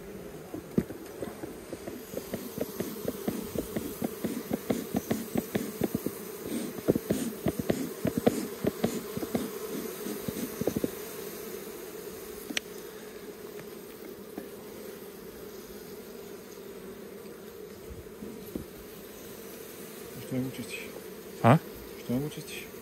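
Honeybees from an open hive humming steadily. Through roughly the first half there is a quick run of clicks and knocks as the wooden hive frames are handled, and these die away about halfway through.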